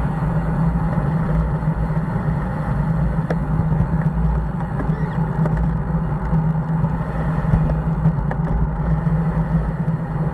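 Steady wind rush and low road rumble on a bicycle-mounted camera's microphone while riding, with motor traffic going by.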